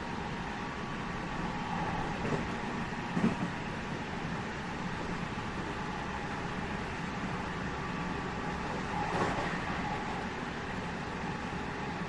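Interior running sound of a JR West 207 series 1000 subseries EMU, heard inside its motor car: a steady rumble of wheels on track with a faint steady tone. Short knocks come about two and three seconds in and again near nine seconds, the one at three seconds the loudest.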